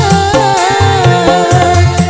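Dangdut music: a wavering, bending melody line over a steady bass and drum beat.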